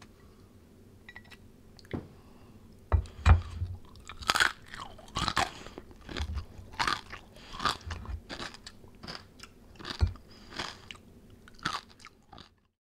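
Crispy roast pork skin crunching and crackling in a run of sharp, irregular crunches, some half a second apart and some nearer a second, loudest a few seconds in.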